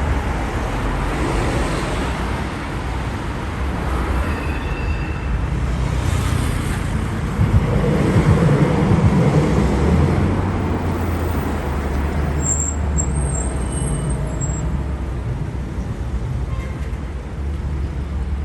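City street traffic: a steady rumble of passing vehicles, with a louder, deeper pass by a heavier vehicle about eight seconds in.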